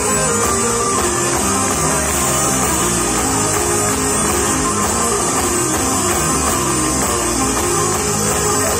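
Live rock band playing loud amplified music through a PA: electric guitars and an acoustic guitar over a drum kit, heard from among the audience.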